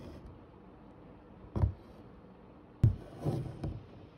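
Hand embroidery on canvas stretched in a hoop: a needle and single strand of cotton floss pushed and pulled through the fabric, with a soft scratchy pull about one and a half seconds in, a sharp tap near three seconds, then a few quick rustling pulls.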